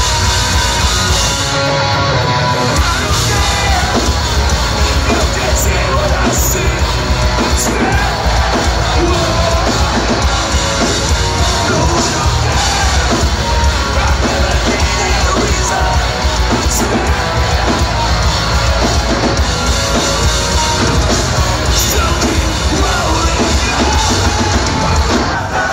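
Hardcore punk band playing live and loud: distorted guitars, bass and drums with yelled vocals, heard from within the audience.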